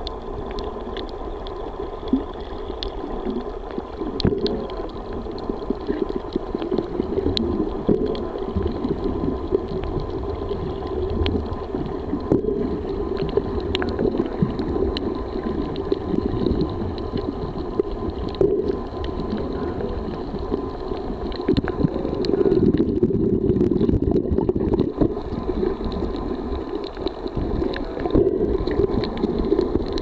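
Muffled, steady underwater rumble recorded by a camera below the surface, with scattered faint clicks.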